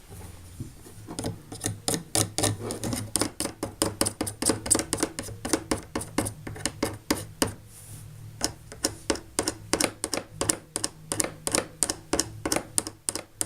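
Rapid, irregular clicking and tapping, several clicks a second, over a steady low hum.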